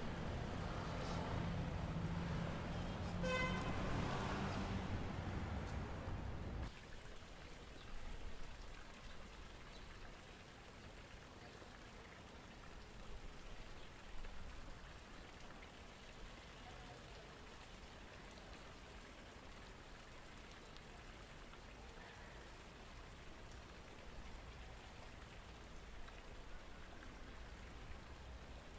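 Water from a stone plaza fountain splashing and trickling steadily. For the first six seconds or so, a louder low rumble and a brief run of rising chirps play over it, then cut off abruptly.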